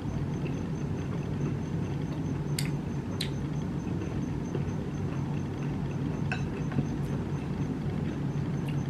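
Eating with chopsticks from a porcelain rice bowl: a few light clicks of chopsticks against the bowl, spaced a few seconds apart, over a steady low hum.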